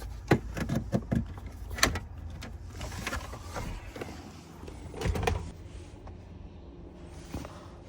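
A series of sharp clicks and knocks, then a louder, longer knock about five seconds in, over a low steady hum.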